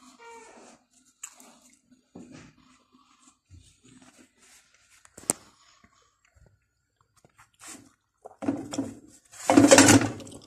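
Kitchen handling noises: scattered small clicks and knocks, with one sharp click about halfway, then a louder rustling clatter lasting about two seconds near the end.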